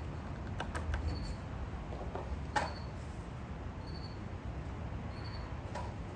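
A short, faint high-pitched chirp repeating about every second and a half over a low steady hum, with a few light clicks and one sharper knock about two and a half seconds in.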